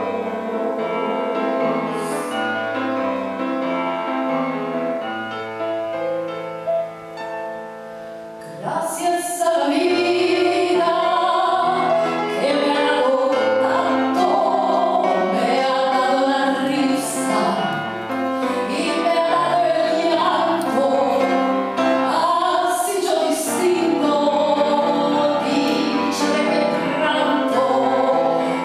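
A woman sings live into a microphone over amplified accompaniment. For the first eight seconds or so the accompaniment is held chords. Then the music grows louder, percussion comes in, and her voice carries the melody.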